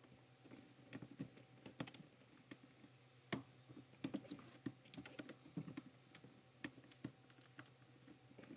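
Faint, irregular clicking and rattling of plastic clips and metal parts as the shift cables are wiggled and pulled loose from the manual shifter assembly.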